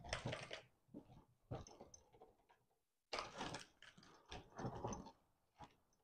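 Bundle of car wiring harness being handled, with loose wires and plastic connectors rustling against each other in several short, irregular bursts with quiet gaps between them.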